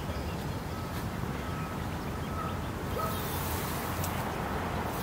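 Steady low outdoor rumble with faint bird chirps; about three seconds in, a brief dry rustle and crackle as a large dry tumbleweed is handled.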